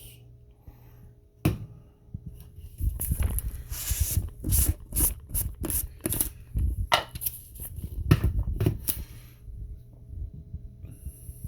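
A plastic tub of protein powder being handled: an irregular run of knocks, rustles and scrapes.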